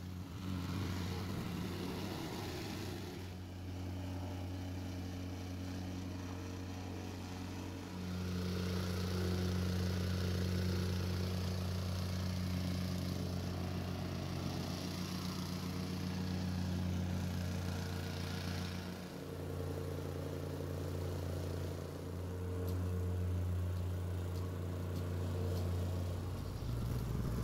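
Gas-engine plate compactor running steadily while it packs down a crushed-stone paver base. The engine note holds even, growing a little louder about eight seconds in, with a couple of brief dips later on.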